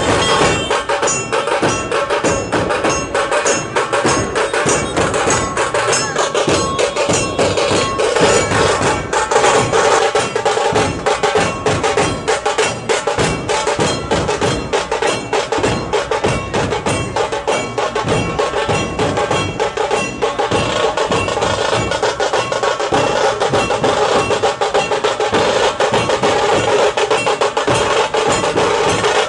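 A troupe of large dhol barrel drums being beaten together in continuous, dense street drumming, with no pause.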